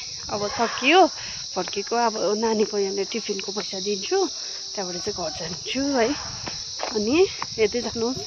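Steady, high-pitched chorus of insects shrilling in the trees, with a person's voice rising and falling over it.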